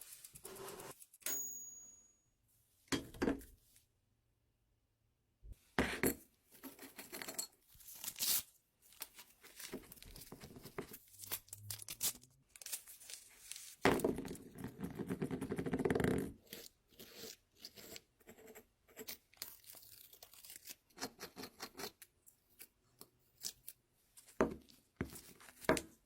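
Irregular scraping, rustling and tearing sounds in short bursts with brief pauses, mixed with small clicks; a longer, louder stretch comes about halfway through.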